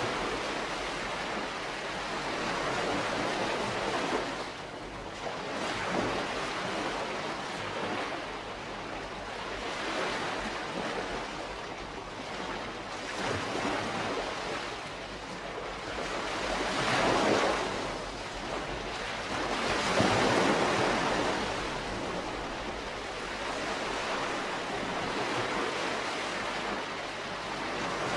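Calm sea waves washing onto the shore: a continuous hiss of surf that swells and recedes every few seconds, with two stronger surges a little past the middle.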